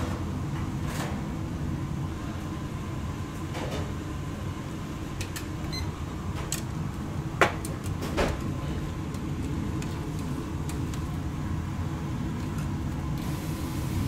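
A steady low mechanical rumble with a faint steady hum, and a few sharp clicks and knocks on top, the loudest two about seven and a half and eight seconds in.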